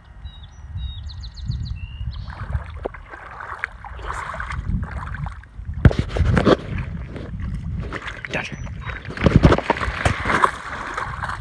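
A dog wading through shallow muddy water, splashing and sloshing irregularly, with the loudest splashes about six and nine and a half seconds in. A bird chirps a few times in the first couple of seconds.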